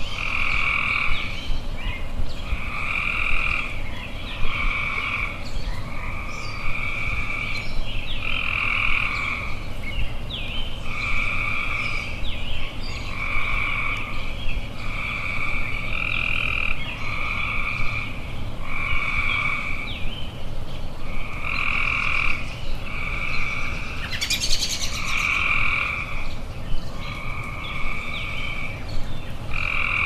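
Tree frogs calling in a steady chorus: a two-pitched croak repeating about every second and a half. Small bird chirps are scattered over it.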